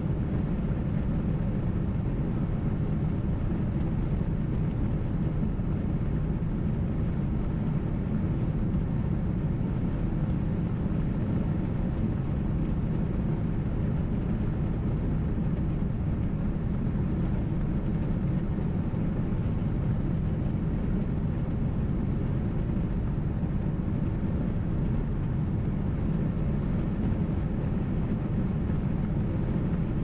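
Steady low rumble of a car driving on a paved road: road and engine noise heard from inside the cabin, unchanging throughout.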